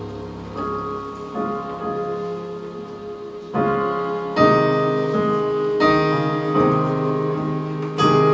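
Slow piano music: chords struck every second or so and left to ring.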